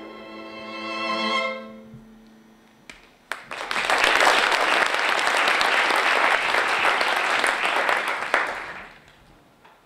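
The last held note of the live music fades away, then audience applause starts about three seconds in, runs for about five seconds and dies away.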